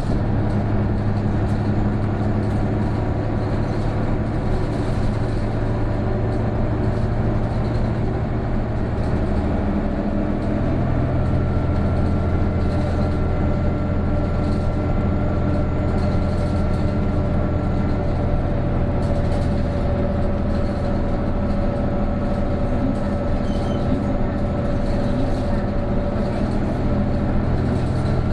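Isuzu PJ-KV234L1 city bus's turbo diesel running under load, heard from inside the cabin. About ten seconds in, the engine note drops and shifts, as at a gear change. After that a thin steady whine rides over the engine: the abnormal noise this bus makes once the turbo comes in, from about 1300 rpm.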